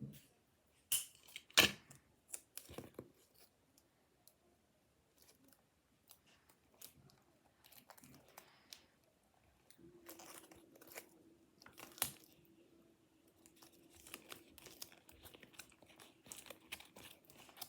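Paper and cardboard being handled up close for a paper craft: rustling, crinkling and tearing, with scattered crackles and a few sharper snaps, the loudest near the start and about twelve seconds in.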